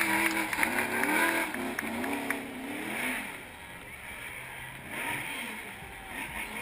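Ford Mustang RTR drift car's V8 revving up and down hard as it drifts. It is loudest in the first second or so, then fades as the car moves away across the circuit.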